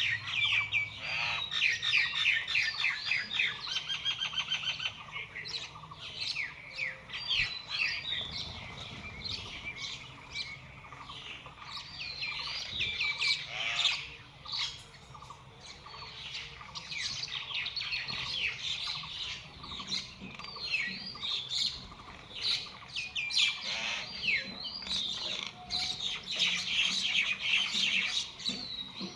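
A flock of small birds chirping and calling over one another in quick, overlapping notes, thinning out briefly around the middle.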